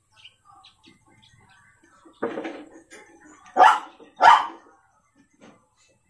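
A dog barking: a rougher first bark about two seconds in, then two loud, sharp barks about half a second apart, and a faint one near the end.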